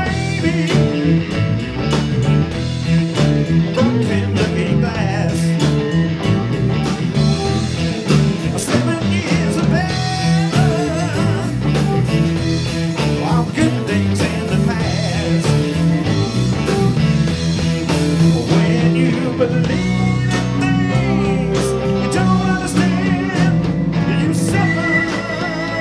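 Live band playing a blues-rock song: electric guitar, keyboards, bass guitar and drums, with a steady drumbeat throughout.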